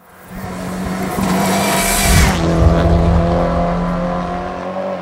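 Race car passing at speed: its engine and tyre noise build to a peak about two seconds in, then the engine note drops and fades as it goes away.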